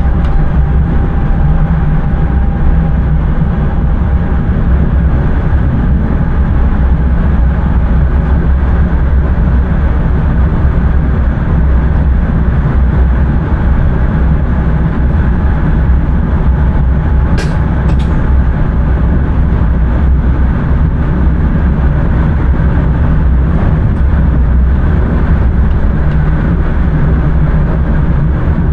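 Intercity train running along the line, heard from the driver's cab: a steady low rumble of wheels on rails and running gear, with two short sharp clicks about two-thirds of the way through.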